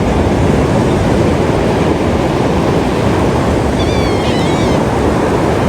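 Ocean surf washing steadily on the beach, with a cluster of short high-pitched bird calls about four seconds in.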